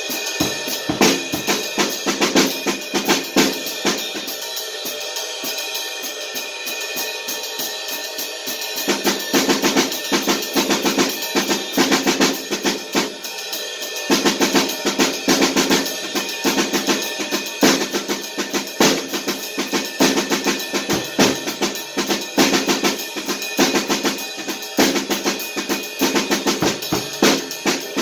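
Acoustic drum kit played continuously: snare, bass drum and cymbals. The playing is lighter for the first several seconds, then gets louder and heavier about nine seconds in.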